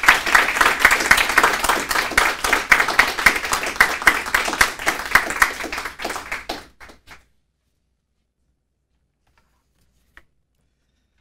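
Audience applauding in dense, overlapping claps that thin out to a few last claps about seven seconds in, then stop.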